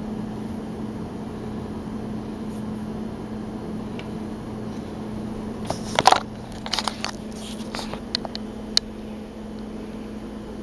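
Steady low hum with a cluster of sharp knocks, clicks and rustles from about six to nine seconds in, loudest near six seconds, as the camera is picked up and moved by hand.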